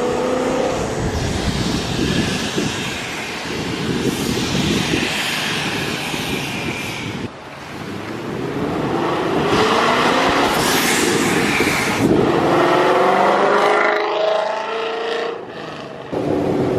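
Procharger-supercharged Ford Coyote 5.0 V8 accelerating hard, its pitch climbing through the revs along with the supercharger's whine. It breaks off suddenly about 7 seconds in, climbs again, and falls away near the end as the throttle is let off.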